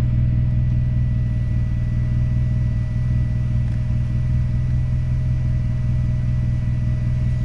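Toyota Celica ST165 Alltrac's 3S-GTE turbocharged four-cylinder engine idling steadily, heard from inside the cabin.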